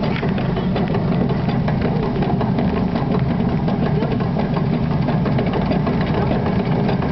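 Miniature steam locomotive running along the track, heard from the footplate: a steady low rumble with a fast, dense clatter of small clicks.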